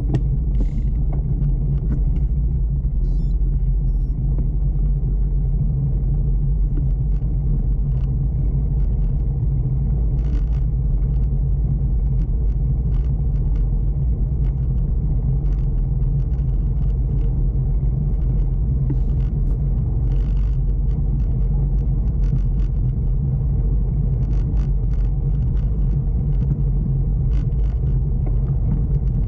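Steady rumble of a bicycle rolling along a wooden boardwalk, with light irregular ticks and clicks scattered through it.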